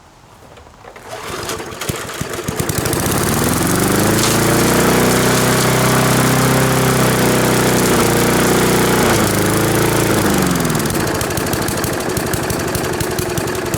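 Craftsman lawn mower engine starting and revving up. It runs steadily for a few seconds, then its pitch sags and falls away into a rough rattle, and it dies near the end. The engine will not keep running.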